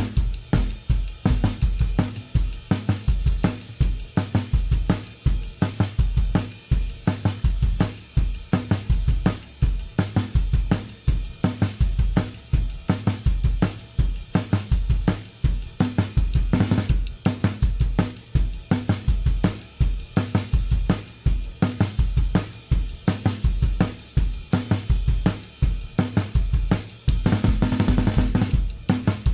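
Background music driven by a drum kit: a steady fast beat of kick drum, snare and cymbals over a heavy bass line.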